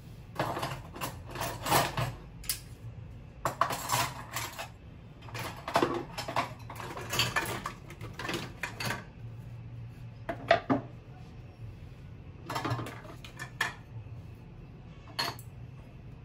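Dishes and kitchen utensils clinking and clattering as they are lifted out of a wire dish-drying rack: wooden chopsticks and spoons, a wooden cutting board, a bowl and a glass lid knocking against the rack and each other. The clinks come in irregular clusters, sparser in the second half.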